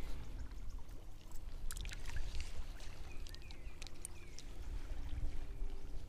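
Shallow seawater sloshing, with a low rumble of wind on the microphone and a few faint clicks.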